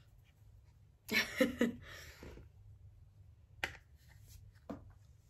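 Quiet room tone with a brief wordless vocal sound from a woman about a second in, then two sharp separate clicks in the second half.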